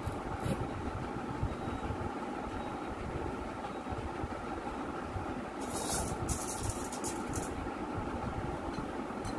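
Steady machine-like hum and rumble in the background, with a short run of crackling rustles near the middle.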